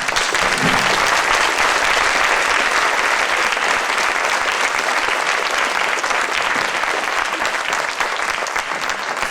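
Theatre audience applauding at the end of a song, a dense steady clapping that eases slightly near the end.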